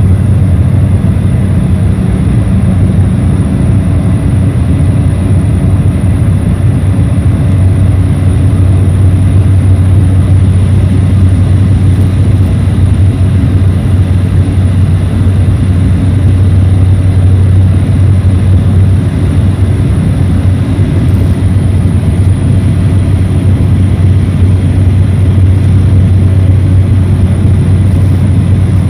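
Cabin noise of a small high-wing propeller plane climbing out after takeoff: the engine and propeller make a loud, steady drone with a deep hum and a thin high whine above it.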